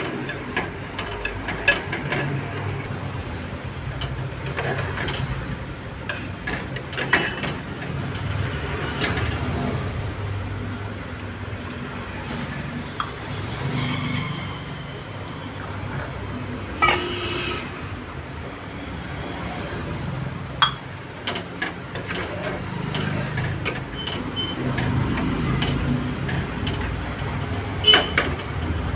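Metal ladle clinking and scraping against an aluminium pressure cooker pot as rice, vegetables and gravy are stirred, with scattered sharp knocks over a steady low hum.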